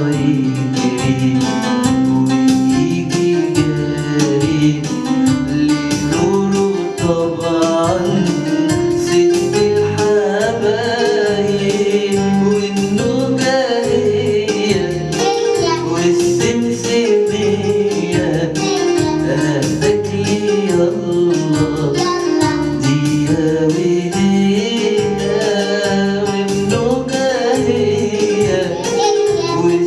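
Music with a singing voice over a steady percussion beat.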